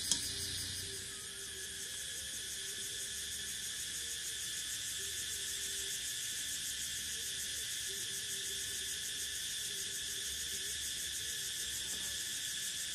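Evening chorus of crickets and other insects: steady, shrill trilling in several pitch bands at once, with faint low wavering calls beneath it.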